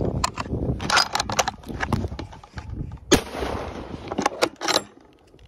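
A hunting rifle fires once, sharply, about three seconds in, and the report rings on for a moment. Before it come rustling and knocks from the hunter moving with the phone.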